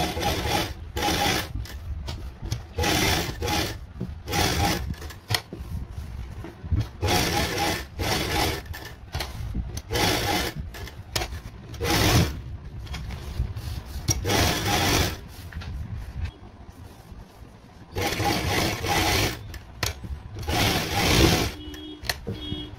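Domestic straight-stitch sewing machine stitching in about ten short runs, stopping and starting between them as the cloth is turned to follow a curved pattern.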